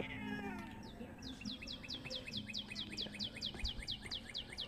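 A bird calling: a rapid, even series of high descending chirps, about seven a second, lasting about four seconds.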